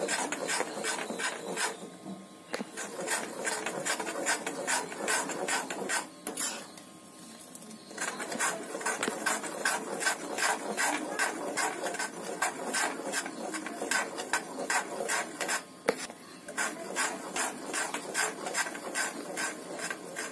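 Steel spoon scraping around a metal kadhai as semolina and gram flour are stirred while roasting in ghee, a quick rasping about four strokes a second. The stirring pauses briefly twice, the longer break coming about six seconds in.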